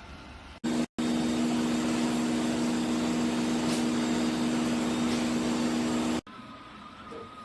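Robot vacuum's suction motor running: a steady hum over a rush of air. It starts abruptly, drops out for an instant just after starting, and cuts off abruptly about six seconds in.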